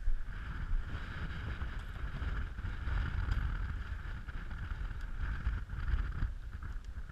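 Strong wind buffeting the microphone in gusts, with the nylon tent flysheet rustling and flapping as it is handled.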